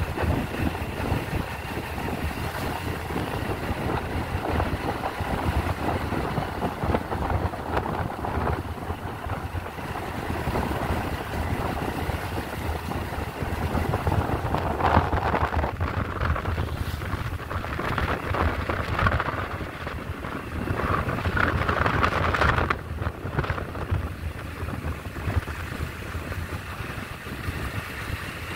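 Wind buffeting the microphone over the running engine and tyres of a small motor scooter being ridden at speed. The noise is louder for a stretch around the middle.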